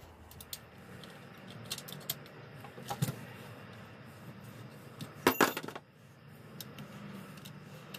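Light metal and plastic clicks and rattles from a golf bag pull cart's frame and bracket being handled as the bracket is taken off, with a louder quick run of clicks about five seconds in.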